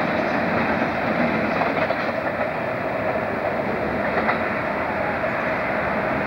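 Diesel locomotive running past with a train, a steady, even noise without clear wheel beats.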